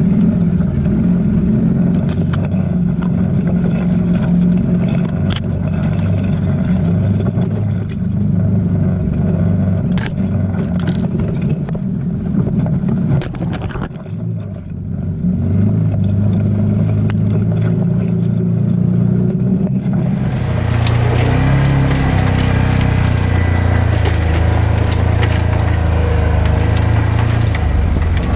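Off-road vehicle engine running steadily at crawling speed, with scattered snaps and scrapes of brush against the machine. The engine eases off briefly around the middle, and about two-thirds in a louder rustling scrape joins it.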